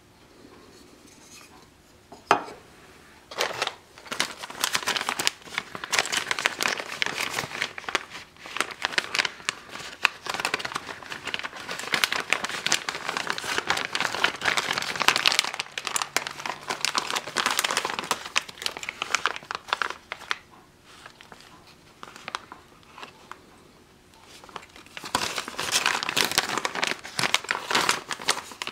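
Packaging from an AR-15 lower parts kit crinkling and tearing as it is handled and opened, in long stretches of dense crackle. There is a sharp click about two seconds in, and a quieter pause about three-quarters of the way through.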